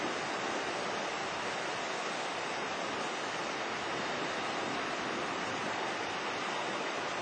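A steady, even rushing noise, with no voices, music or distinct events.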